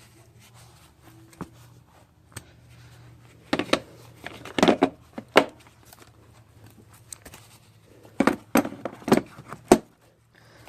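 Hand tools being packed back into a tool set: two bursts of sharp metal clicks and clacks, one a few seconds in and another near the end.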